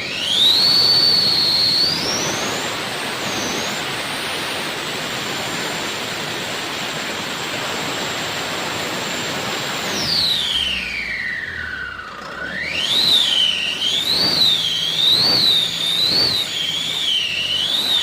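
Tata 1416 BS6 truck's turbocharged diesel engine being revved, its turbocharger whistling. The whistle climbs to a high steady pitch held for several seconds, falls away about ten seconds in, then rises and dips again with about five quick throttle blips near the end.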